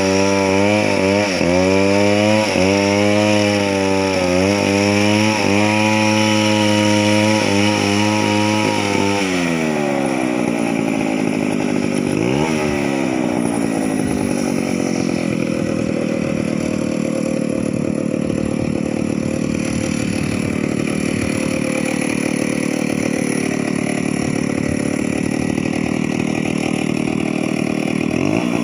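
Two-stroke chainsaw running at high revs, its pitch dipping briefly every second or so. About nine seconds in it drops to a lower, rougher running sound, with a short rev around twelve seconds and again near the end.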